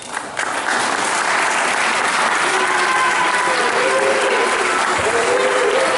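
Audience applauding, building within the first second and then holding loud and steady as the stage goes dark at the end of a scene.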